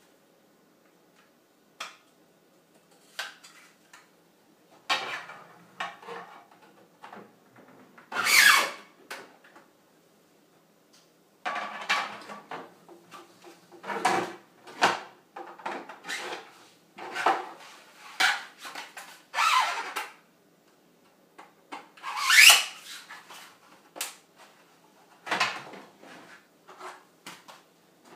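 Hollow 3D-printed PLA wing segments being handled and pushed together: irregular plastic clacks, knocks and scraping. Twice there is a longer, louder scrape, once about a third of the way in and again later on.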